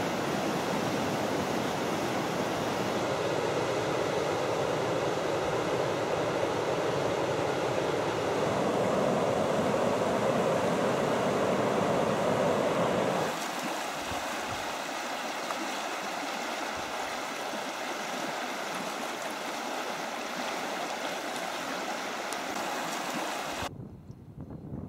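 Rushing water of river rapids and small cascades, a steady rush that cuts abruptly about halfway through to a quieter rush of rapids heard from a canoe. Near the end it drops away to a much fainter, uneven sound.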